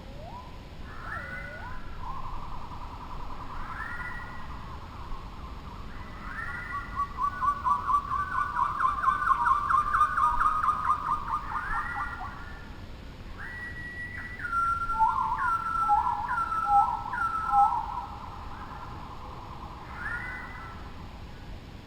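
Songbirds singing in clear whistled notes: repeated curved, slurred whistles, a fast loud trill in the middle, then a quick series of short stepped whistles dropping in pitch.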